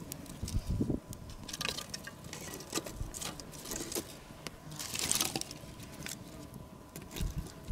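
Small dry sticks and twigs rustling and knocking as they are laid by hand on a small wood kindling fire, with short sharp crackles from the burning kindling; a louder rustle comes about five seconds in.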